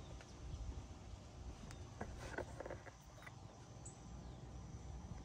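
Faint outdoor ambience with a low, steady background rumble, a few soft taps around the middle, and one short high chirp about four seconds in.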